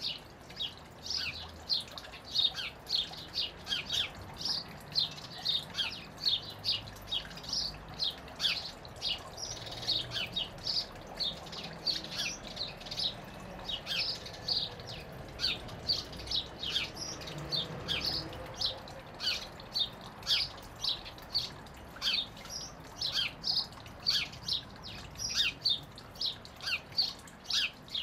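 Sparrows chirping without let-up, several short, sharp chirps a second.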